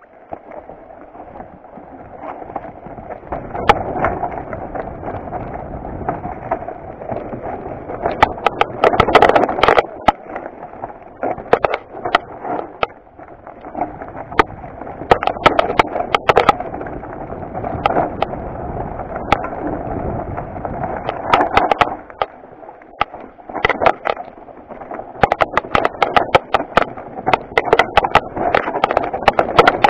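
Mountain bike riding down a rough rocky trail: tyres rolling and crunching over dirt and stones, with frequent sharp knocks and rattles as the bike hits rocks.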